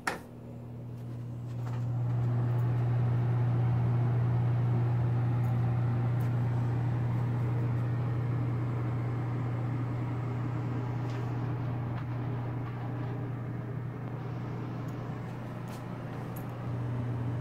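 A switch clicks, then a bathroom exhaust fan starts, spinning up over about two seconds into a steady low hum with a hiss of moving air.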